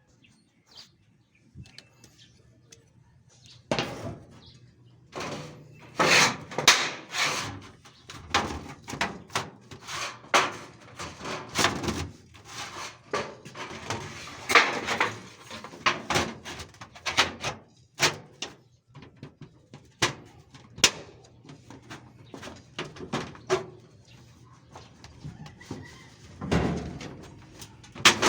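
Irregular knocks, bangs and clatters, hard objects striking one another, starting about four seconds in and going on unevenly, several in a second at times.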